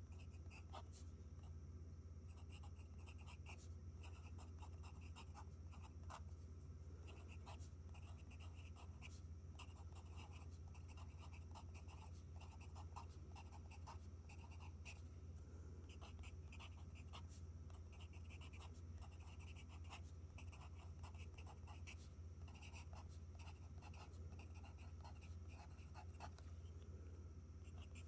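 Pencil writing on paper, continuous irregular short scratching strokes of handwriting as text is copied out, over a low steady hum.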